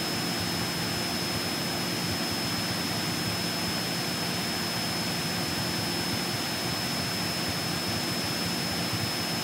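Cessna 172 Skyhawk's piston engine and propeller running steadily at climb power, with a constant drone of engine and airflow noise and a thin steady high whine.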